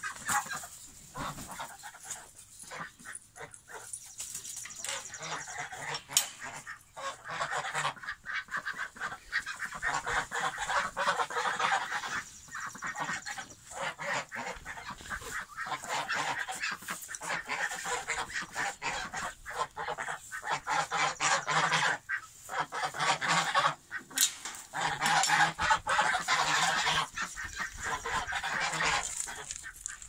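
A flock of domestic geese honking over and over, many quick calls overlapping, sparse at first and becoming a near-continuous racket from about eight seconds in.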